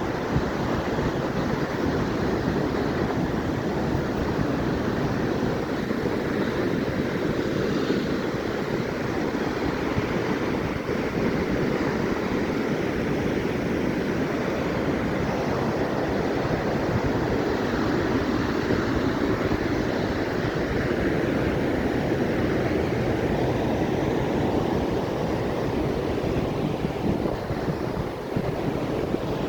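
Steady rushing of Atlantic ocean surf, with wind buffeting the microphone in a low rumble.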